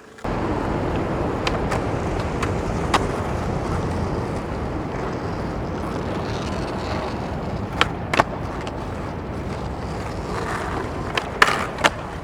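Skateboard wheels rolling steadily over rough pavement, a rumble that starts abruptly, with about six sharp clicks and clacks scattered through it.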